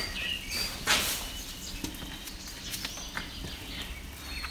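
A few short, high bird chirps over a quiet outdoor background, with one brief scuff about a second in.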